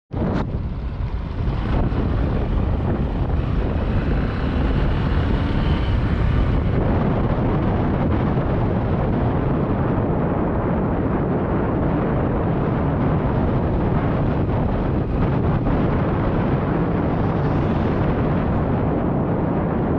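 Steady, loud rumble of wind buffeting the microphone together with vehicle travel noise; the higher hiss eases off about seven seconds in.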